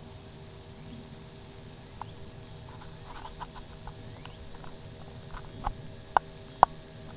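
Steady evening chorus of crickets over a faint low hum, with scattered small clicks from about two seconds in and two sharp, louder clicks near the end.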